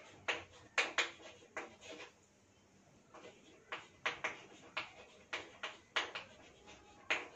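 Chalk writing on a chalkboard: quick scratching and tapping strokes as letters are written, several a second, with a short pause about two seconds in.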